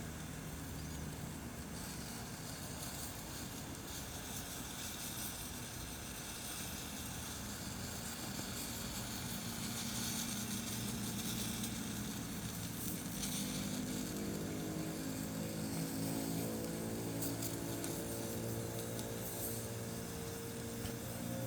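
Steady hiss of a medium flame as an orange roasts over it. Background music with low held notes comes in about two-thirds of the way through.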